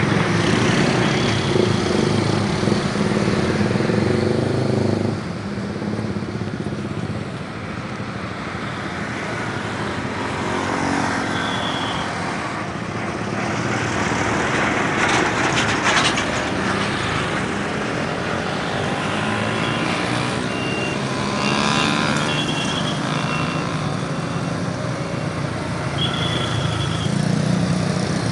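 Road traffic passing close: heavy diesel buses and trucks with small motorcycles among them. A heavy vehicle's engine is loudest for the first five seconds, then drops away, and a large coach passes close around the middle. Short high-pitched beeps sound a few times.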